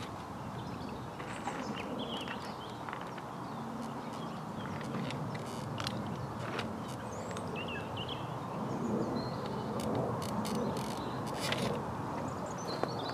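Songbirds chirping now and then over a steady low background rumble, with a few sharp clicks around the middle and again about ten seconds in.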